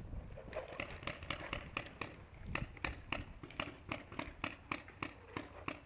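Footsteps of several people walking on dry, gritty dirt, a regular crunching tread of about four steps a second.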